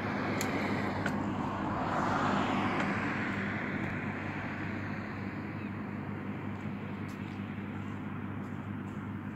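Outdoor street traffic: a vehicle passes, loudest about two seconds in and slowly fading away, over a steady low engine hum.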